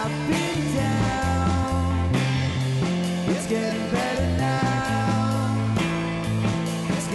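Rock band playing: electric guitars over a bass line and drums.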